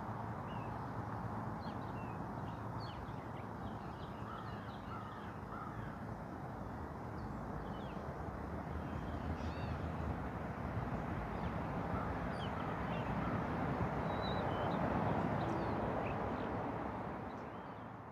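Outdoor dawn ambience: crows cawing and other birds calling over a steady background hum, which swells a little and then fades out at the end.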